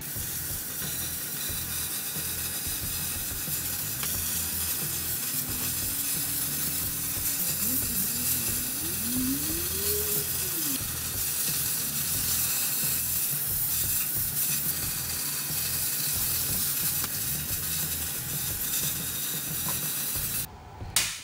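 Handheld cutting torch hissing steadily as it cuts through the steel wall of an old air tank. The hiss stops abruptly near the end.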